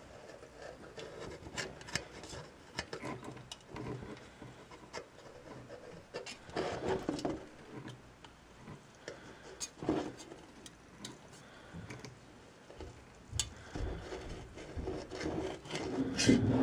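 Intermittent rubbing and scraping with scattered small clicks as a soldering iron tip and solder wire are worked along a seam between a metal band and a can. The handling noise comes and goes, louder about 7 seconds in, about 10 seconds in and near the end.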